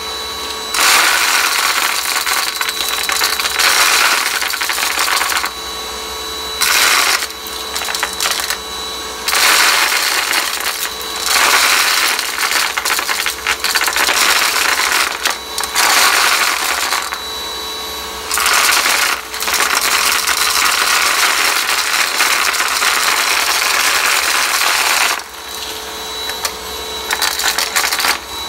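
Cordless stick vacuum running and sucking up beans, which rattle and crunch loudly through the head and tube in repeated bursts of a second or two over the motor's steady whine.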